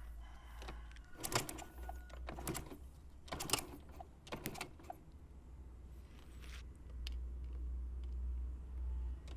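Motorcycle kick-starter kicked about four times, once a second, cranking a four-stroke engine with its spark plug out to check for a spark. Each kick is a short mechanical clatter over a steady low rumble.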